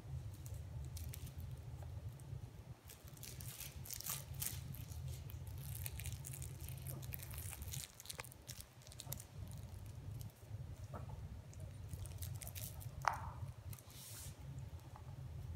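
Pomeranian puppies chewing and gnawing on a rubber ball and rope toy, with scattered soft crunching clicks. About thirteen seconds in there is one short, sharp, falling squeak.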